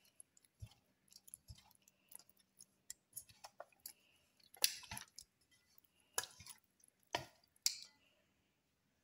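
A hand squeezing and mixing raw fish pieces in a wet lemon-juice marinade in a stainless steel bowl: irregular wet squelches and soft clicks, with a few louder ones from about the middle on.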